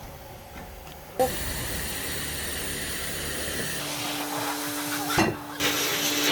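Air rushing in a steady hiss that starts abruptly about a second in. A steady hum joins partway through, and a sharp knock comes about five seconds in.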